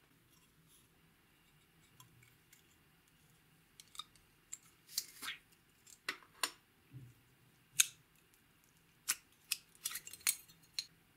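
Sharp clicks and snaps of a plastic slime container being handled and opened, starting about four seconds in, then clear slime pulled out of it with sticky pops.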